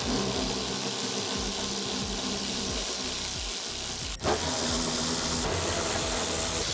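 Cordless power driver spinning a 10 mm socket on an extension, running off the nuts that hold the hatch handle on their studs. A steady motor whir with a short break about four seconds in, then running again.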